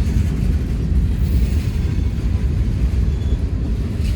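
Freight cars rolling past at close range, a steady low rumble of steel wheels on rail.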